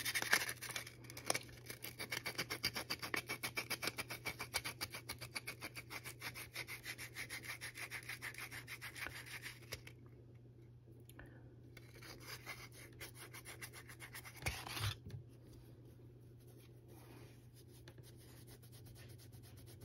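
Sandpaper rubbed back and forth in quick, even strokes over the bottom end of an 18650 lithium cell, scuffing off what is left of the tack-welded strips. The strokes run for about ten seconds, stop, come back for a few seconds, then fade to faint rubbing.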